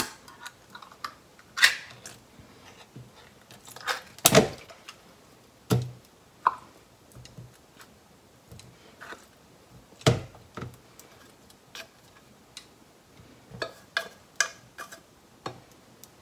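Chopsticks clicking and scraping against an open tin can as chunks of canned mackerel are lifted out into a plastic colander: scattered sharp clicks and knocks, a few of them louder.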